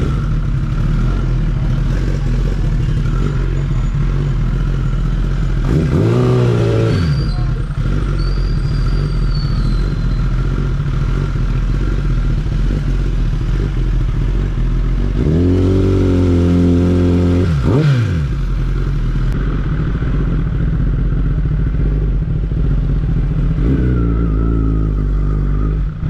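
Kawasaki ZX-10R's inline-four engine idling steadily. It is revved briefly about six seconds in, held at higher revs for about two seconds in the middle before dropping back, and blipped lightly near the end.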